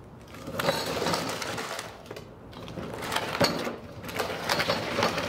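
Wheels of a loaded cart carrying a mini fridge rolling over a paved driveway, rattling and scraping unevenly.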